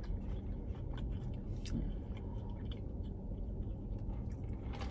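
Faint mouth sounds of someone sipping a soda through a straw from a large fountain-drink cup, with small scattered clicks, over a low steady hum.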